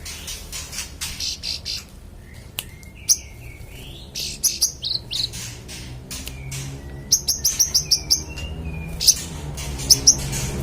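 A manggaran songbird singing in full voice: strings of sharp high chirps and quick trills, broken by short gliding whistles, over a faint low hum.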